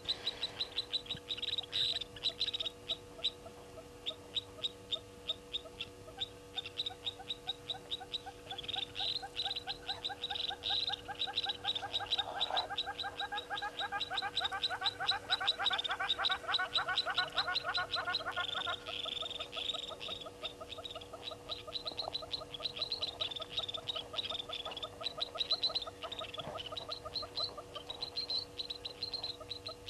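Several animals calling in fast trains of clicks, many a second, overlapping throughout, over a faint steady hum.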